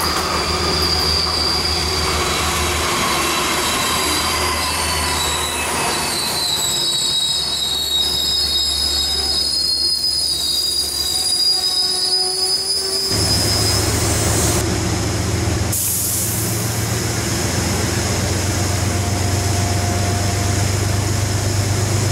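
Metro-North GE Genesis P32AC-DM diesel locomotive and its passenger coaches rolling into a station, with high, shifting wheel and brake squeal over a low rumble. About thirteen seconds in, the sound changes abruptly to the locomotive's diesel engine running steadily close by, a low hum with a steady tone above it.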